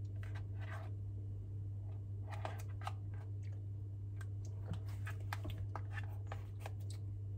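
Small wet lip smacks and mouth clicks, scattered and irregular, as maple syrup is dabbed onto the lips with a fingertip and the lips are pressed together. Underneath runs a steady low hum.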